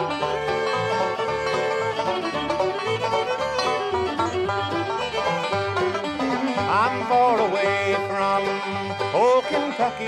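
A bluegrass band of banjo, fiddle, mandolin, acoustic guitar and bass playing an instrumental break with no vocals. There are sliding notes about seven and again about nine seconds in.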